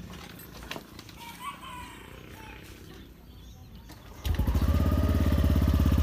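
Yamaha NMAX scooter's single-cylinder engine firing up a little over four seconds in, after a few faint clicks at the ignition, then idling steadily with a fast, even pulse through a JVT aftermarket power pipe exhaust.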